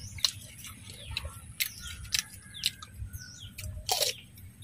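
Small birds chirping in short, quick calls, over sharp clicks and crunches from chewing crispy-skinned fried duck. The loudest crunch comes about four seconds in.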